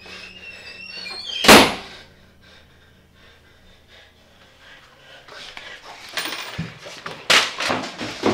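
A door slams shut with one loud, sudden bang about a second and a half in. Softer scuffing and knocking sounds follow in the last few seconds.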